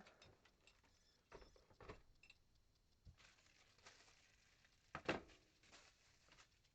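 Near silence broken by a few faint knocks and clicks, the loudest a sharp knock about five seconds in.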